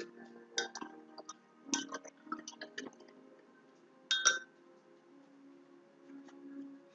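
Light clinks and taps of small hard objects as painting supplies are handled, with one sharper, louder clink about four seconds in.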